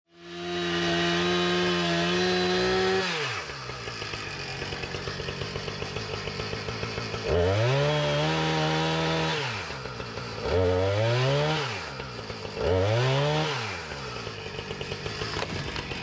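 Gas chainsaw running at full throttle, then dropping back to idle about three seconds in. It is revved up three more times, each burst climbing in pitch and falling away again to idle.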